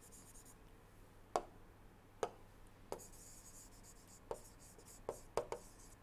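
Stylus writing on a tablet screen: faint, light scratching of pen strokes broken by about seven sharp taps, most of them in the second half.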